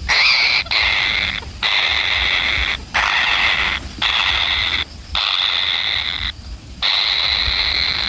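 An animal giving about seven harsh, rasping calls, each roughly a second long and steady in pitch, with short breaks between them.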